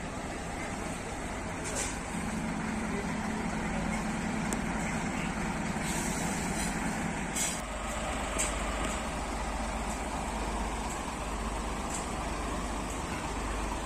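Scania fire tender's diesel engine running as the truck pulls away slowly and turns. A few short air hisses come a little past the middle.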